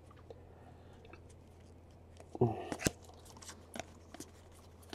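Trading cards being flipped through by hand: soft scattered clicks and rustles of card stock sliding over card stock, with a short murmur of a voice about halfway through.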